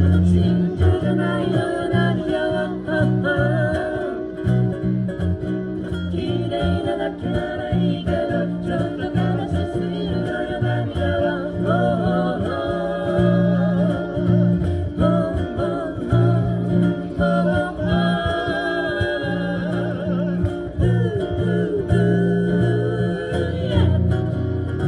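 Live acoustic cover of a pop song: acoustic guitar strumming in a steady rhythm under a wavering melody line.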